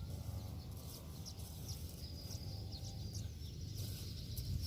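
Scattered short, high bird chirps over a steady low rumble, with a thin steady high-pitched tone underneath.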